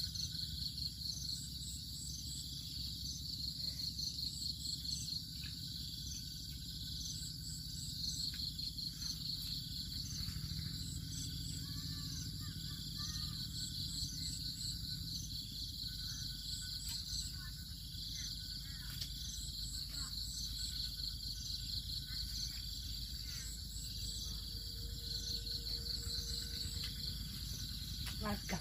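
Steady high-pitched chorus of insects such as crickets or cicadas, rapidly pulsing, over a low steady background hum.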